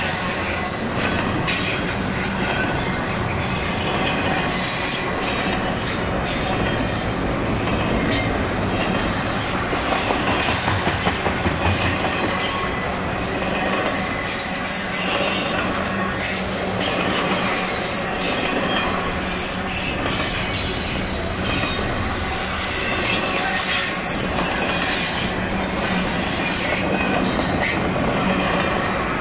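Double-stack container train's well cars rolling past: a steady rumble and rattle of steel wheels on the rails, with a short run of rapid clacking about ten seconds in.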